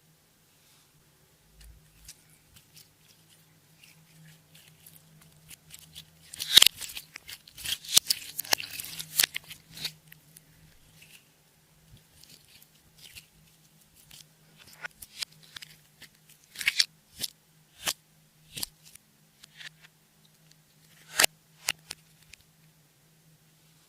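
Clear slime being squished and pressed by hand, giving sticky clicks and pops. A dense run of crackling comes about six to ten seconds in, with scattered single pops after it.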